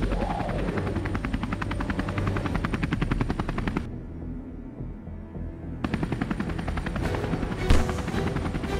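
Fast, even rattle of sharp repeated pops over music, dropping out for about two seconds in the middle, then resuming, with one heavier hit near the end.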